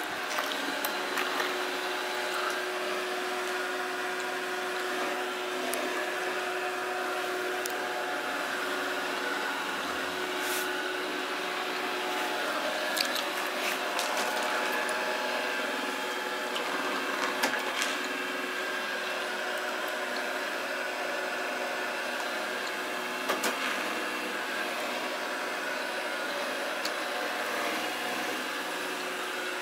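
Samsung SR8751 robot vacuum running: a steady motor and brush whir with a constant hum, broken by a few sharp clicks or knocks.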